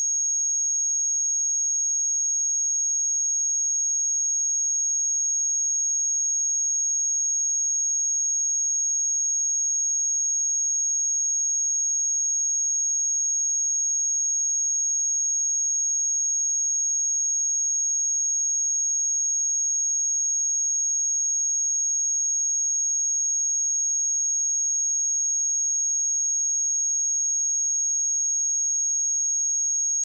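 A pure sine-wave test tone at 6562 Hz, one steady high-pitched note held at a constant level with no change.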